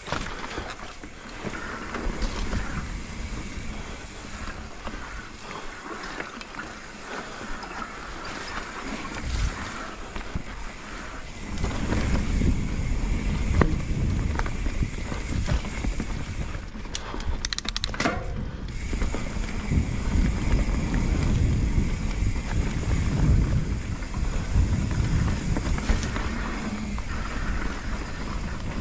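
Mountain bike riding down a dirt trail: tyres running over the ground and the bike rattling and knocking over rough spots, under wind buffeting the camera's microphone. The wind rumble grows much louder about twelve seconds in.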